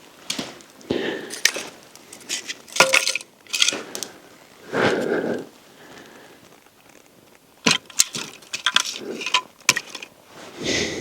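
Dry firewood being handled and broken to build a campfire: a scattered series of sharp cracks and knocks of wood, with rustling in between.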